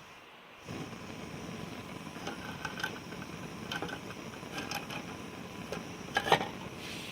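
Small hobby Stirling engine running with a mechanical clatter and irregular clicks, starting about a second in, with a sharper knock near the end. The owner suspects the displacer has worked loose from its rod again.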